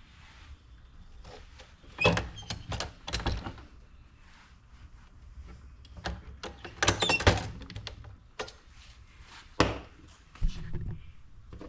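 Clicks and clunks of a MEC Grabber shotshell reloading press being worked by hand. There are several sharp knocks about two to three seconds in, a tight cluster around seven seconds, and a few single knocks near the end.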